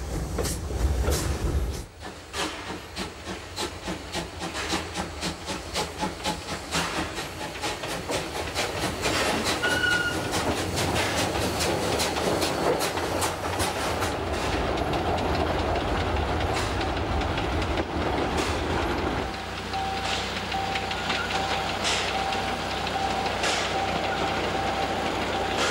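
Steam locomotive No. 14, a G 3/4 mogul, chuffing and clanking slowly past with hissing steam and rail clatter. A brief whistle sounds about ten seconds in. Near the end a level-crossing warning signal rings with a steady pulsing tone as the steam train approaches.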